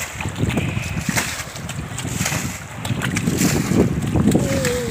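Water thrown by the scoopful splashing against the side and wheel of a car standing in a shallow river, with irregular splashes over the rush of the river and wind buffeting the microphone.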